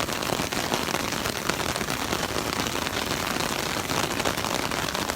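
Heavy rain falling on an umbrella held just overhead: a steady, dense patter of many small drop hits.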